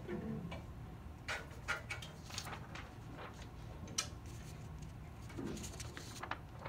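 A cello note dies away at the start, then scattered light clicks and rustles of paper being handled. Near the end a large flip-chart page is lifted and turned.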